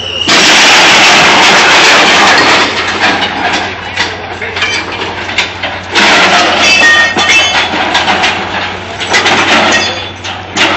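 Loud, harsh noise from track-repair machinery working on the rails. It comes in two long surges, one at the start and one about six seconds in, with short metallic squeals during the second.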